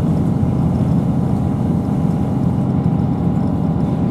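Steady low rumble inside the passenger saloon of a Class 158 diesel multiple unit running at speed: underfloor diesel engine and wheels on the rails, with a faint steady high tone above.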